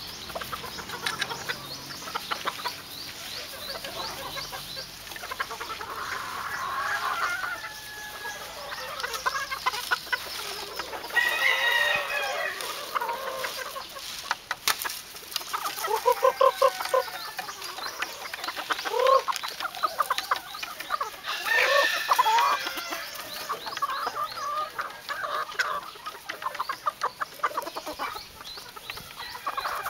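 A flock of young Tarantula-line gamefowl cockerels clucking and calling as they feed, with crowing at times.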